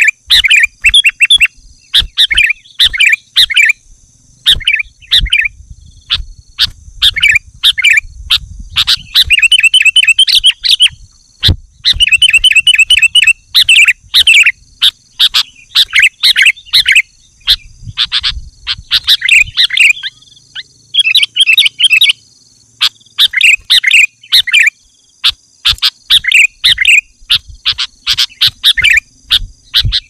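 Male sooty-headed bulbul singing its loud territorial call: short bubbly phrases of quick whistled notes, repeated every second or two, with a few longer chattering runs.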